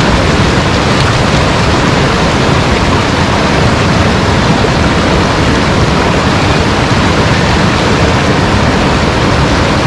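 Fast-flowing water rushing and churning over rocks close by: a loud, steady rush.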